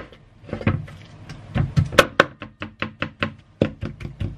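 Kitchen knife mincing raw chicken meat on a cutting board: a fast run of chops, fainter at first, then louder and steady at about five a second from about a second and a half in.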